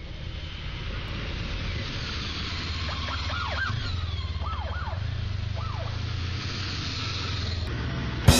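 Emergency-vehicle siren giving several short rising-and-falling whoops over the low rumble of an approaching heavy truck's engine. Loud music cuts in at the very end.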